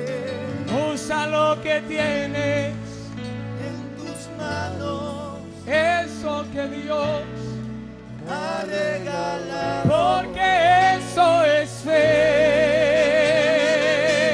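Live gospel worship song: male singers singing with vibrato over a band, ending on a long held vibrato note.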